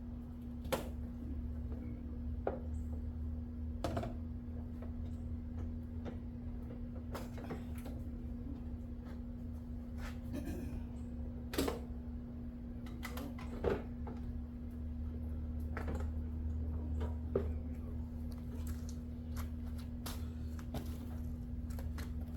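Scattered sharp clicks and knocks of parts and tools being handled during headlight work on a car, over a steady low hum.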